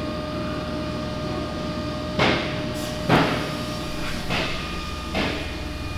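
Four scuffing knocks about a second apart, the second the loudest, as someone climbs into a bare steel-tube aircraft fuselage onto its plywood floor, over a steady background hum.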